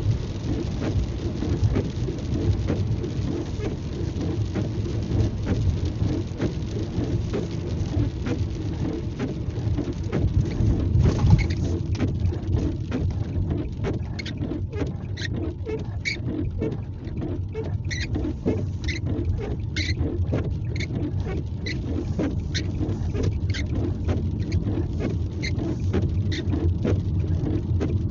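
Inside a moving car on a wet road: steady road and tyre noise. From about halfway, light sharp clicks start, roughly one a second with fainter ones in between.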